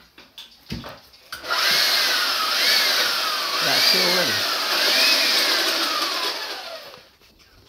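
Electric drill with a long bit boring into a wall for about five seconds. Its motor whine sags as the bit loads up and then jumps back up, about four times, before the drill winds down near the end. A few knocks come just before it starts.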